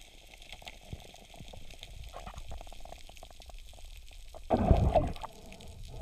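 Water sounds with scattered small clicks and crackles, then a loud rush of water about four and a half seconds in, lasting under a second.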